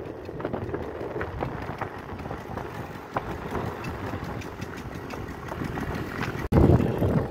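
Yamaha motorcycle engine running while riding, a steady rumble with faint regular ticks. About six and a half seconds in, the sound cuts off for an instant and comes back as a louder rush of wind and engine.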